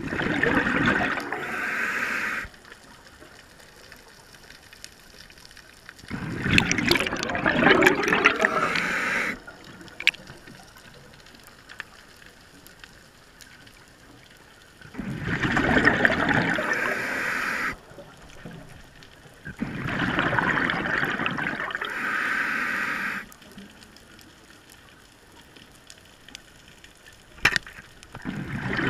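Diver's exhaled breath bubbling out of a scuba regulator, heard underwater: four bubbly bursts of about three seconds each, with quieter gaps and faint clicks between breaths.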